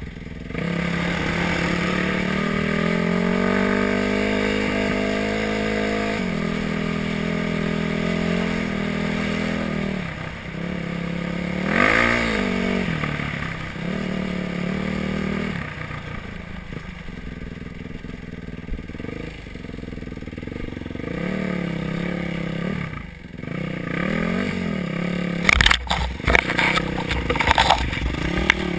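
Yamaha WR450F four-stroke single-cylinder dirt bike engine revving up and down as it is ridden along a rough dirt trail, with one sharp rev and drop about twelve seconds in. Near the end a run of knocks and clatter sounds over the engine.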